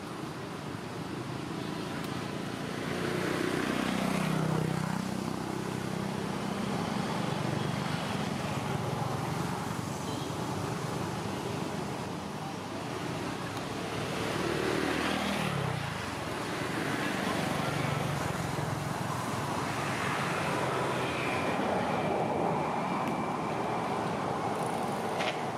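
Motor vehicles passing on a nearby road over a steady traffic background: two pass-bys, about 4 and 15 seconds in, each with the engine pitch falling as it goes by.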